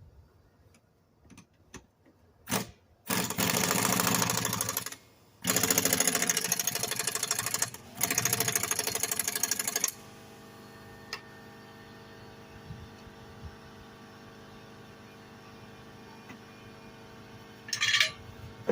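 Pneumatic impact wrench hammering in three bursts of about two seconds each as it runs the lawnmower blade bolt tight. A steady hum follows, with a short hiss near the end.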